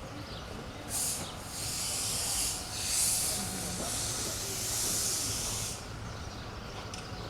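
Air hissing in several bursts over about five seconds, with a low steady hum underneath.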